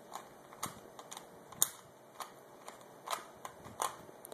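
Plastic Rubik's Cube layers being twisted by hand: about ten short, sharp clicks at an uneven pace.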